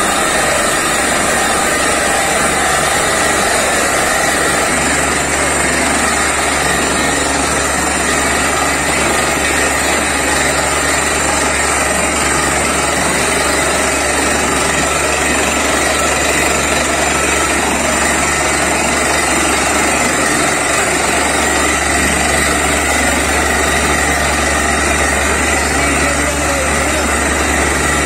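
Borewell drilling rig running steadily while drilling: a loud, unbroken drone of the rig's engine and air compressor driving the drill.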